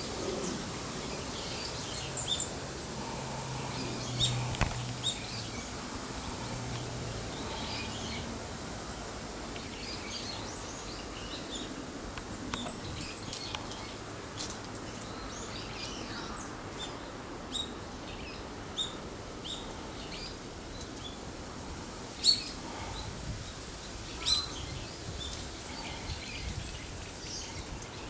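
Brown-eared bulbuls calling again and again: short, high-pitched calls scattered over steady background noise, two of them louder late on.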